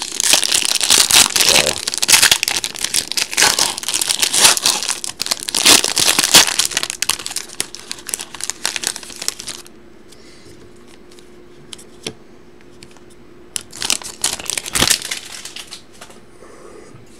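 Foil wrapper of a hockey card pack being torn open and crinkled by hand, loud and continuous for about ten seconds. Then it goes quieter, with one more short crinkle about fourteen seconds in.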